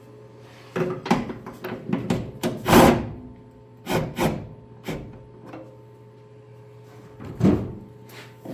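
Irregular metallic scrapes and knocks as a 1968 Mustang's hood is lowered on its factory hinges, the hinge rubbing against the fender and catching on a screw. The loudest scrape comes about three seconds in, with another strong knock near the end.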